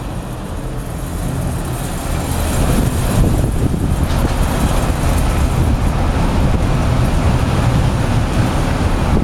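Strong wind buffeting the microphone, a dense low rushing noise that grows louder over the first three seconds and then stays loud and gusty.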